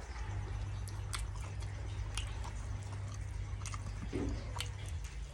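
A person chewing food close to the microphone, with irregular wet smacking clicks of the mouth, over a low steady hum.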